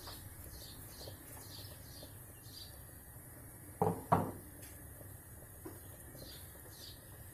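A china plate set down on the worktop with two sharp knocks about four seconds in, while a bird chirps in the background, repeated short chirps about twice a second.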